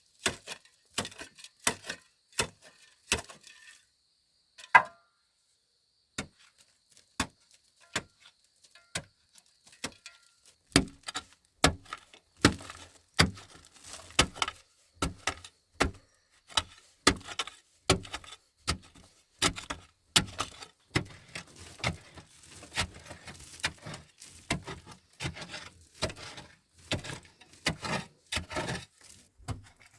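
A run of sharp knocks of a tool striking wood, one or two a second. One louder knock rings briefly about five seconds in, then comes a pause of several seconds, and the knocks return more densely and keep on through the rest.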